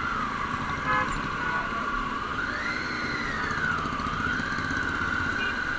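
Triumph Tiger XRx 800 cc inline-three motorcycle on the move: a steady rumble of engine and road noise with a whine on top. About two and a half seconds in, the whine rises in pitch, then falls back about a second later.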